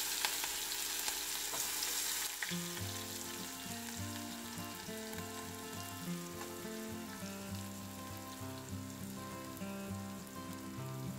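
Chopped onions just added to hot oil, sizzling and frying in a pan, a little louder in the first two seconds. Background music with held notes comes in about two and a half seconds in.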